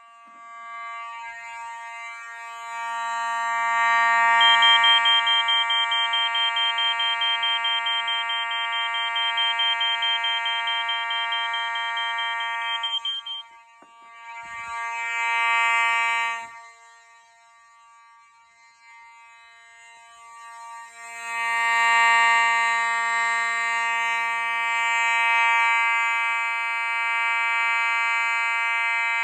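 Fire alarm horn sounding a steady, buzzy tone. It cuts out about 13 seconds in, sounds briefly again around 15 seconds, then comes back from about 21 seconds on.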